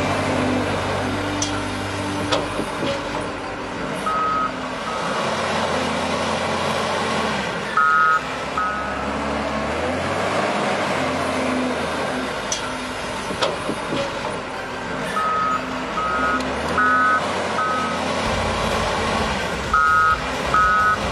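Truck engine running with a low hum, and a reversing alarm sounding short high beeps in clusters of two or three, several times.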